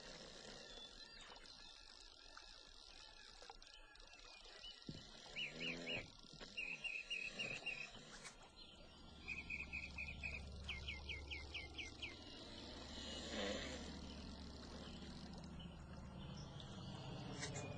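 Faint outdoor ambience with a bird giving quick runs of chirps twice in the middle. A low steady hum comes in about halfway and grows louder toward the end.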